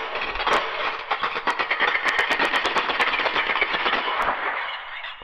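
Channel-logo intro sound effect: a dense crackling hiss with a fast run of sharp clicks through the middle, fading away near the end.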